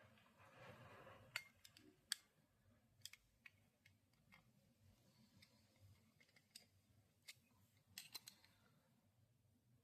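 Faint, scattered sharp clicks at irregular spacing, a few of them louder near the start and a quick cluster near the end, after a short soft rustle.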